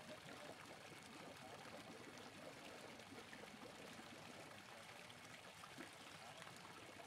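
Faint, steady trickling and splashing of water.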